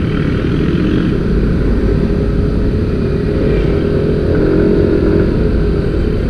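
Motorcycle engine running at road speed under heavy wind rush on the mounted camera's microphone, the engine note rising slightly around the middle.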